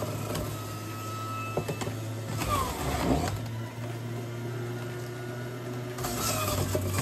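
Breville centrifugal juicer running with a steady motor hum while celery is fed through and shredded, getting louder and noisier near the start and again about six seconds in.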